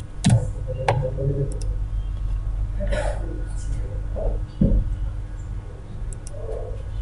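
Two sharp computer key clicks, about a quarter second and about a second in, and a dull knock about four and a half seconds in, over a steady low electrical hum and faint breathy sounds.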